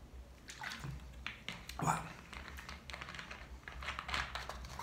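Small clicks and rustles from handling a plastic drink bottle after drinking from it, with a louder rustle about two seconds in.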